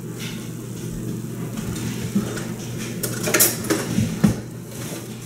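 Kitchen clatter of dishes and utensils being handled, with a few sharp clinks about three to four seconds in, over a steady low hum.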